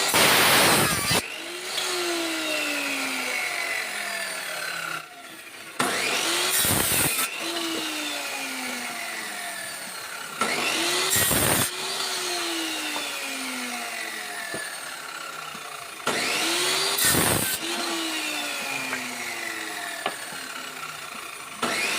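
Homemade electric saw machine cutting wooden kaso battens one after another. Before each cut a whine rises, the cut itself is a loud burst of about a second, and then a falling whine follows. There are four cuts about five and a half seconds apart, and a fifth starts at the very end.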